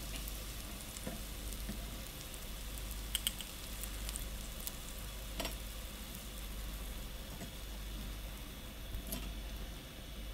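Shallow oil sizzling steadily in a frying pan around sticky-rice turon spring rolls as they finish frying and are lifted out with tongs. A few light clicks come from the tongs.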